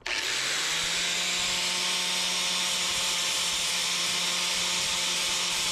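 Electric angle grinder switching on and spinning up, then running steadily as its abrasive disc grinds the steel hatchet head to reshape it.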